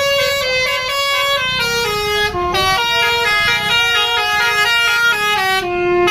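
Bus basuri 'telolet' musical horn playing a tune: loud held notes stepping up and down in pitch, one after another without a break.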